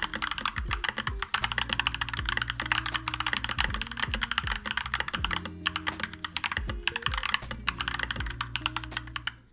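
Fast typing on a Keychron K2 mechanical keyboard fitted with EPOMAKER Budgerigar switches: a rapid, continuous clatter of keystrokes with brief pauses about one and five and a half seconds in. Music plays underneath.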